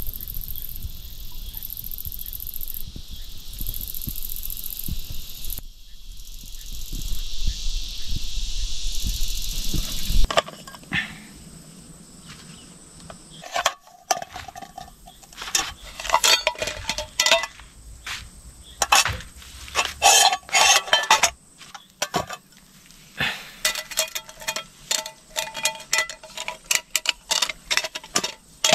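Insects buzzing high in the trees in slow pulses over a low rumble; about ten seconds in the sound changes sharply to a string of clinks and knocks from handling camp cookware, some strikes ringing like metal.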